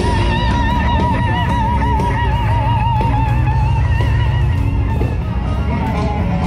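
Background music: a lead guitar holding long notes with a wide, even vibrato over a steady low accompaniment.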